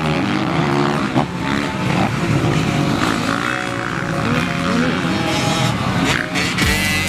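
Several motocross bikes' engines revving up and down as they ride the track, over background music.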